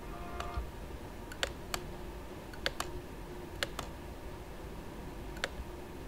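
Computer mouse clicking: about seven sharp clicks, several in quick pairs, over a faint steady room hum.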